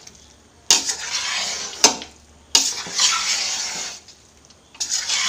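Spatula stirring and scraping cooked rice in a metal pot: three scraping strokes of about a second each, with a sharp knock against the pot about two seconds in.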